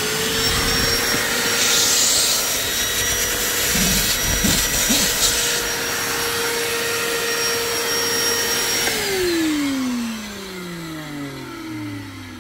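Vacuum cleaner running steadily at full speed, then switched off about three-quarters of the way through and spinning down with a falling whine.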